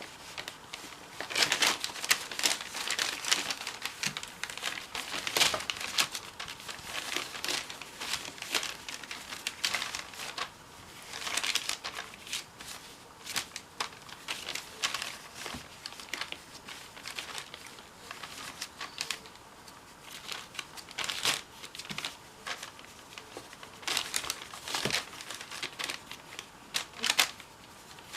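Irregular rustling and crinkling noises in short bursts of about a second each.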